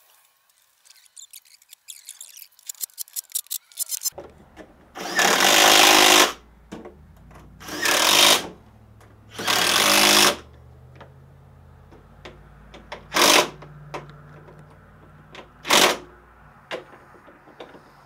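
Cordless impact wrench driving in battery box cover bolts, running in three bursts of about a second each, then two short blips as the bolts seat. Before that, a quickening run of light clicks.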